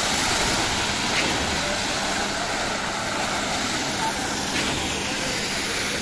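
Concrete pump machine running: a steady, dense mechanical noise over a constant hum.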